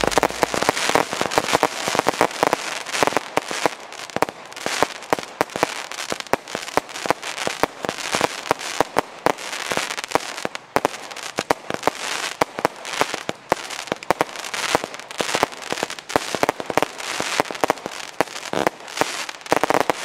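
Weco 'Nightlife' consumer firework going off: a dense run of sharp pops and bangs with crackling, several a second.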